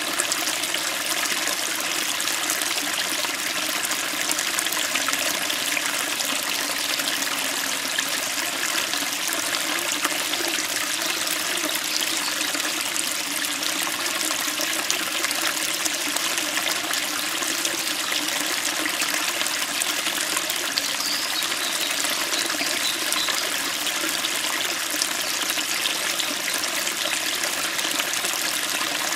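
Small stream running over rocks, a steady crisp splashing and babbling of water.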